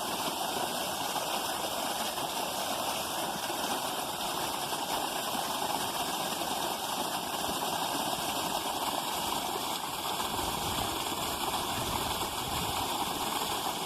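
Creek water running steadily, an even rushing hiss, with a low rumble swelling for a few seconds near the end.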